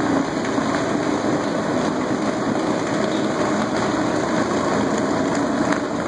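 Rotary floor machine (brush machine fitted with a cleaning pad) running with a steady motor hum, its spinning pad working over stone tile.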